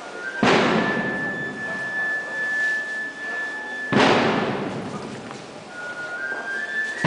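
Bass drum and crash cymbals of a procession band struck together three times, about three and a half seconds apart, each crash ringing out before the next, with a thin high held tone between the first two.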